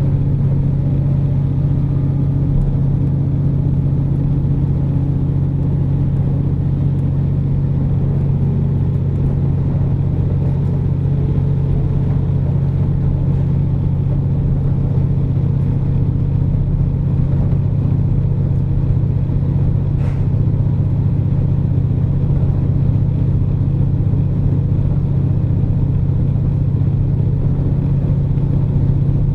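KiHa 47 diesel railcar running along the line, heard from inside the car: a steady low diesel engine drone under the rumble of wheels on rail. A faint click comes about two-thirds of the way through.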